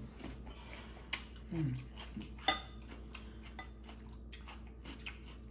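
A spoon clinking and scraping against a dish of food, with a string of small sharp clicks; the loudest comes about two and a half seconds in. A brief hum of a voice sounds about one and a half seconds in.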